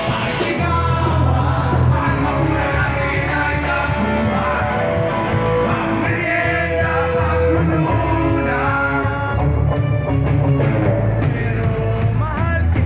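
Live rock band playing, with a man singing into a microphone over bass, guitar and drums.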